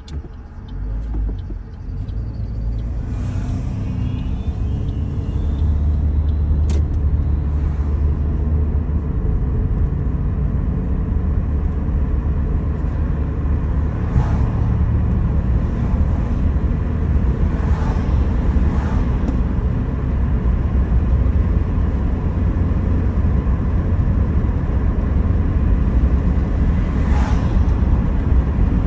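Car cabin noise as the car pulls away from a stop: engine and tyre rumble grows louder over the first five or six seconds, then settles into steady road noise at cruising speed. A light, regular ticking sounds in the first couple of seconds.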